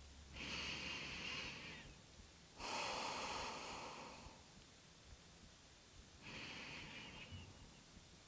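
A woman breathing slowly and deeply, three long, faint, airy breaths with quiet pauses between.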